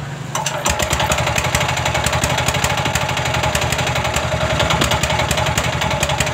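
186F single-cylinder air-cooled diesel engine brought up to full throttle about half a second in and running fast with an uneven popping misfire. It is still misfiring and smoking after its injector nozzle was adjusted.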